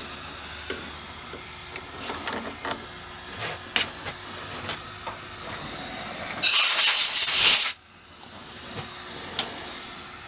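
A compressed-air blow gun on a coiled hose lets out a loud hiss for just over a second, about six and a half seconds in, clearing chips from the milling vise, then cuts off sharply. Before it come scattered light clicks and taps.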